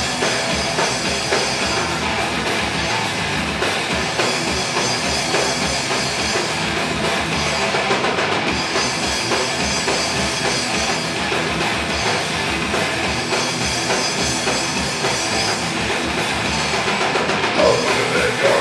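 Heavy metal band playing live: distorted electric guitars over a drum kit, at a steady full level throughout.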